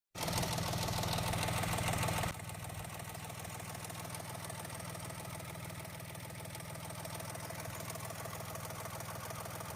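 Mahindra XUV 3XO MX1 engine idling steadily, a little louder for the first two seconds. It runs without the tractor-like tak-tak: the loose thin plate inside the dented front section of the silencer (exhaust) has been replaced.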